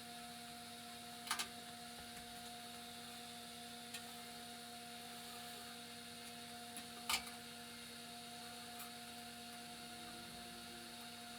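Faint, steady electrical hum with a few light clicks, one about a second in and another about seven seconds in.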